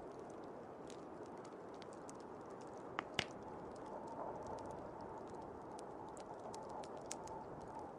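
Fire crackling, with scattered sharp pops and two louder snaps about three seconds in, over a steady rushing of blizzard wind; a faint whistle joins the wind from about four seconds in.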